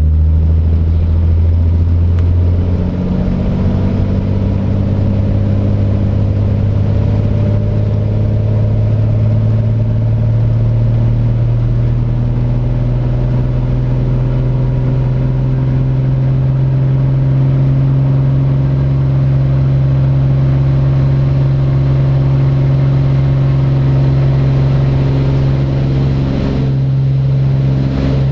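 Beechcraft Bonanza A36's six-cylinder piston engine and propeller brought up to full takeoff power about three seconds in, then running loud and steady on the takeoff roll. Its higher tones rise slowly as the aircraft gathers speed.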